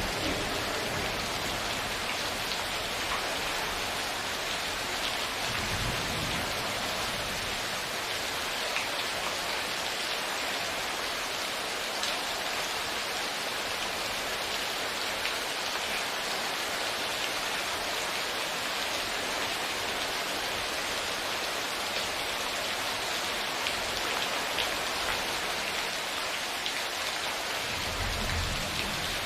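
Steady rain falling, an even hiss of drops on surfaces, with a low rumble of distant thunder about six seconds in and again near the end.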